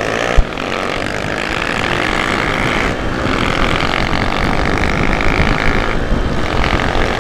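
Dirt bike engine running under way with wind rushing over the camera microphone, steady with brief dips about three and six seconds in. A sharp knock sounds about half a second in.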